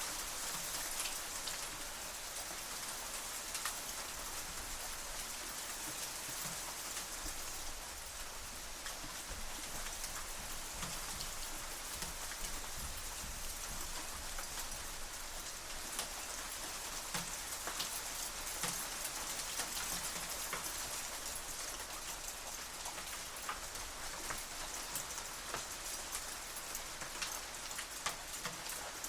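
Hailstones hitting metal shutters: a steady, dense hiss of small impacts, with many sharper individual ticks standing out from it.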